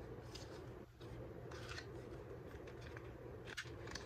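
Faint scratchy rustling of a small cardboard eyebrow-pencil box being handled and opened, a few short scrapes over a steady low room hum.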